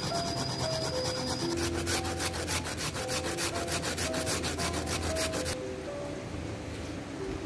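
Fresh galangal rhizome being grated by hand on a grater: quick, rhythmic rasping strokes, several a second, that stop about five and a half seconds in. Background music plays throughout.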